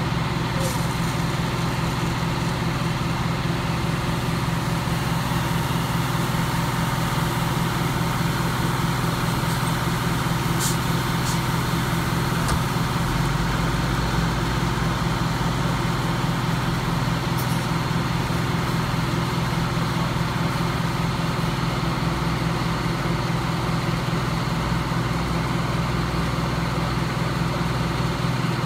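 Fire engines' diesel engines running steadily, with a deeper rumble joining about halfway through. A few sharp clicks come around the middle.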